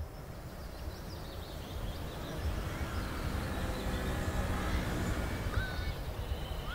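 Park ambience fading in: a steady low background rumble with birds chirping here and there, growing gradually louder.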